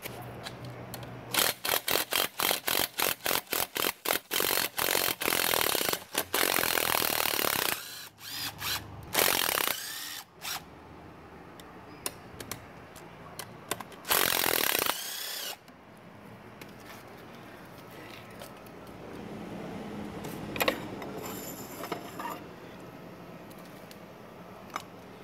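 Cordless impact driver backing out the 12 mm bolts of an outboard water pump housing: a quick string of short trigger bursts, then a longer run and two more bursts, followed by quieter clinks of the loosened bolts and housing being handled.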